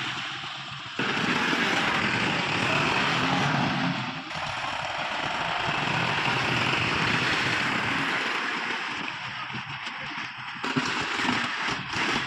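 Heavy diesel machinery, a tractor or backhoe, running with a dense clattering noise. The sound changes abruptly about a second in and again near ten and a half seconds.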